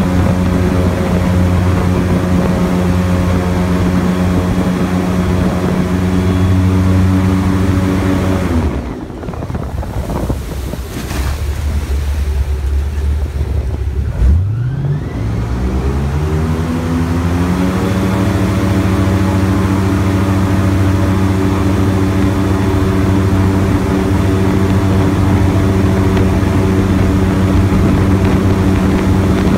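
Airboat's engine and air propeller running loud and steady. The sound drops away briefly about a third of the way through. Around halfway it revs up, its pitch rising over a few seconds as the boat speeds up, then holds steady again.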